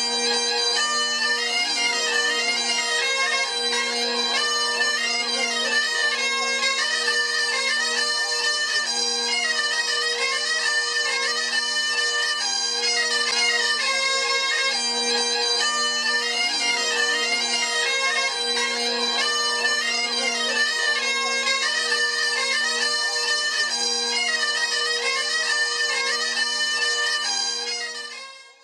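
Bagpipe music: a melody played over steady drones, fading out near the end.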